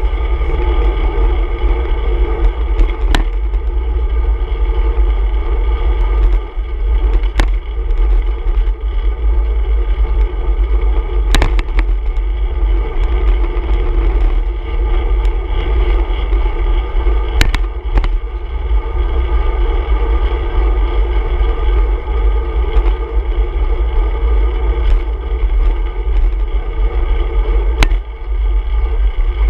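Steady rumble and rush of a road bicycle riding in city traffic, heard from a camera on the handlebars: wind on the microphone, tyre and road noise, and nearby car traffic. A few sharp clicks or knocks cut through at irregular moments, typical of the bike and camera mount jolting over bumps in the road.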